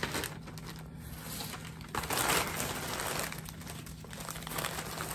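Plastic packaging crinkling and rustling as a white poly mailer bag is opened and a plastic-wrapped garment is handled, loudest about two seconds in.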